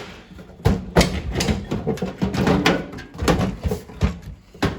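Sheet-metal housing of a 1987 microwave oven being pried at and handled: a run of irregular metallic knocks, clanks and scrapes, with heavier thuds about a second in and again near the end.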